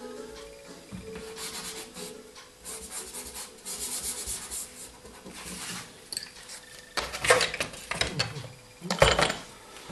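Dry pastel rubbing and scraping on the paper, uneven and scratchy, with two louder, rougher bursts near the end.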